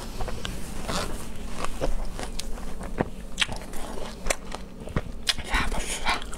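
A person chewing a mouthful of crisp raw starfruit (carambola), close to a lapel microphone. The sound is a run of crunches and moist clicks at irregular intervals, a few a second.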